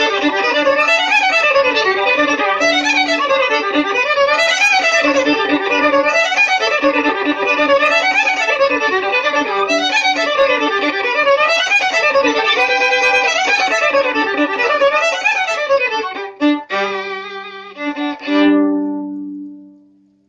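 Solo violin playing a fast folk tune in quick up-and-down runs over a steady low drone note. Near the end the tune breaks into a few separate strokes and closes on a held final note that fades away.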